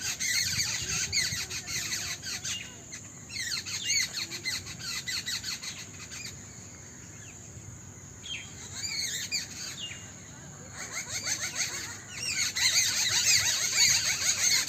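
A flock of small birds chirping rapidly in a dense, high-pitched chorus that comes in bursts with short lulls, loudest near the end.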